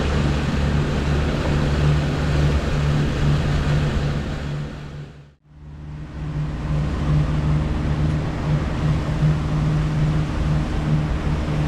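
A 150 hp outboard motor running steadily at trolling speed, a low even hum over a rushing haze. The sound fades out about five seconds in and fades back up.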